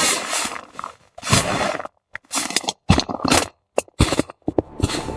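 A quick string of short scraping and rustling handling sounds, about eight separate bursts, each cut off abruptly with silent gaps between.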